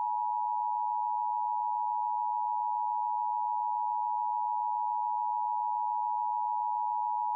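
Emergency Alert System attention signal: a steady two-pitch electronic alert tone held without a break. It marks the start of a new emergency broadcast.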